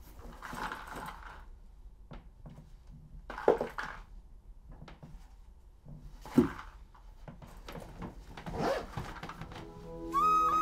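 Fabric backpack being handled and packed: several rustling swells and a few thumps, the sharpest about three and a half and six and a half seconds in. Music with a held, flute-like note starts near the end.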